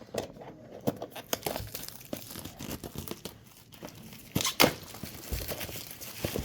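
Plastic wrapping being torn and crinkled off a product box by hand: irregular crackling, with the loudest tearing about four and a half seconds in.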